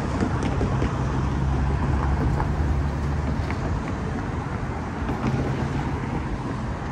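Street traffic: motor vehicles running nearby with a steady low engine rumble that eases about halfway through.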